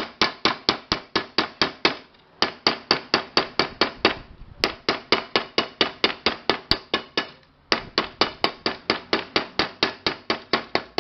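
Hammer striking the bent rim of an aluminium pressure cooker body, straightening the dented edge: rapid blows, about six a second, in three runs with two short pauses.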